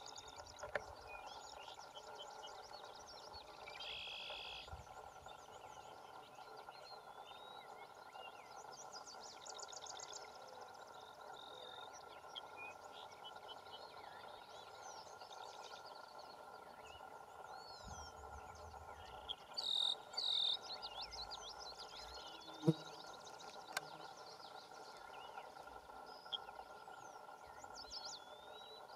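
Marsh ambience: various small birds singing with scattered chirps, trills and whistles over a steady background drone. There are two louder chirps about two-thirds of the way through and a single sharp click shortly after.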